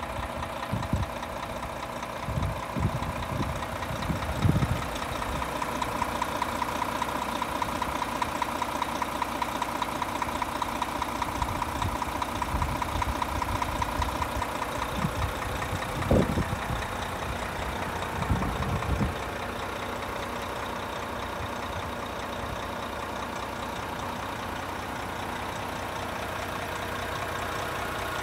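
Renault T460 tractor unit's 460 hp Euro 6 diesel idling steadily with a fast, even diesel clatter. A few low thumps come in the first few seconds and again about sixteen to nineteen seconds in.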